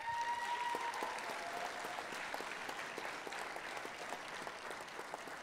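Audience applauding, the clapping slowly dying down, with one short high call over it in the first second.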